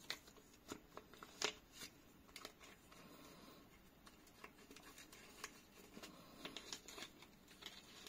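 Faint crinkling and clicking of a small clear plastic zip-lock bag being handled and pulled open, with a sticker sliding out of it, in scattered short crackles.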